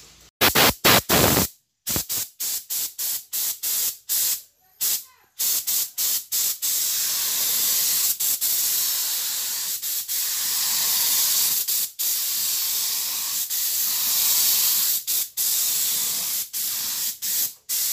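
Gravity-feed air spray gun spraying white base-coat paint: a quick run of short hisses as the trigger is pulled and let go, then longer, almost unbroken hissing passes with brief breaks.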